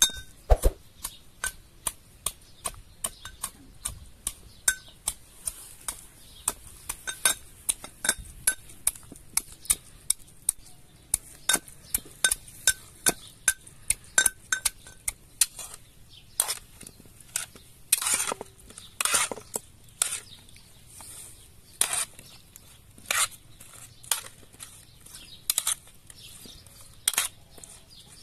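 Brass pestle pounding in a brass mortar, crushing herbs and green fruit: a steady run of sharp metal knocks about two a second with a faint ring, becoming fewer and heavier later on.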